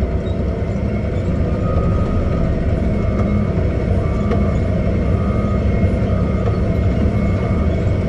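Caterpillar 623K elevating scraper at work, its diesel engine and drive making a loud, steady, heavy rumble. From about two seconds in, a faint beep repeats roughly once a second over it, like a back-up alarm.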